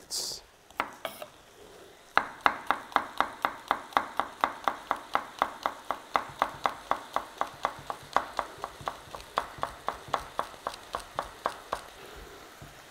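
Spring onions being sliced with a large kitchen knife on a wooden cutting board: a quick, even run of knife strokes, about four a second, that starts about two seconds in and stops near the end. A few single knife taps come before it.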